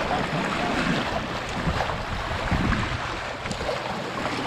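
Small river waves lapping and splashing against shoreline rocks, with wind buffeting the microphone.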